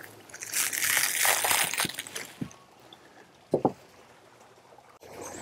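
Clear plastic wrap crinkling and rustling as it is cut open and pulled off a bundle of greenhouse frame bars, for about two seconds, then one short rustle later on.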